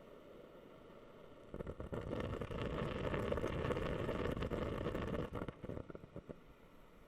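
A rush of water starting about a second and a half in, dense and crackly for about four seconds, then breaking up into a few last splashes and stopping.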